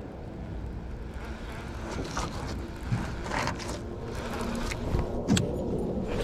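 Wind rumbling on the microphone, with a few sharp clicks and rattles of a baitcasting rod and reel being handled during a retrieve and cast.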